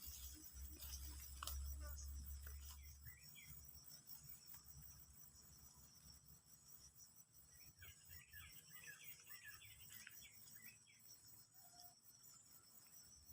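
Faint outdoor ambience: insects keep up a steady high-pitched trill, with a low rumble fading out in the first few seconds and a flurry of short bird-like chirps about eight seconds in.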